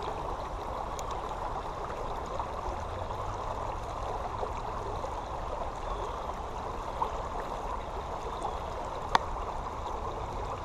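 Creek water flowing steadily, an even rush with a couple of faint ticks.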